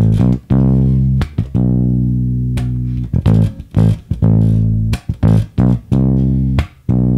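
Electric bass guitar played fingerstyle: held low notes broken up by muted dead notes, short percussive clicks that turn the line into a rhythm.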